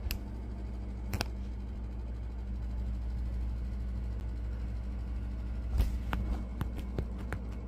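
A steady low hum, with a sharp click about a second in and a run of clicks and knocks near the end as the cat comes right up to the phone and the phone is jostled.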